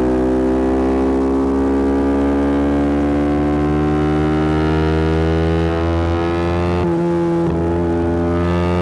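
Yamaha R125's single-cylinder four-stroke engine through a Black Widow aftermarket exhaust, pulling steadily in gear, its note rising slowly. About seven seconds in there is a brief break for a gear change, and then it pulls on.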